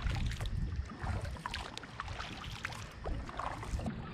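Water lapping and splashing against the wooden hull of a small sailing kayak under way, in many short irregular splashes, with wind buffeting the microphone.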